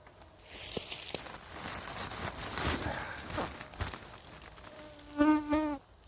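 Rustling and crackling of dry moss and vegetation being handled for about four seconds. Near the end, a flying insect buzzes loudly right at the microphone for about half a second, its pitch wavering.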